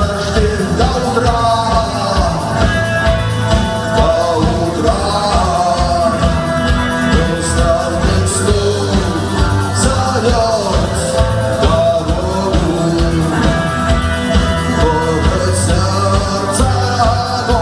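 A band playing a song with a sung vocal line over a steady drum beat.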